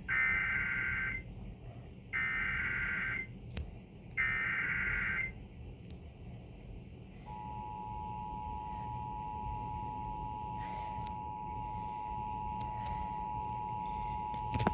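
Emergency Alert System tornado warning opening: three harsh one-second bursts of SAME digital header data, about a second apart, then, starting about seven seconds in, the steady two-tone EAS attention signal. Together they signal an incoming emergency alert, here a National Weather Service tornado warning.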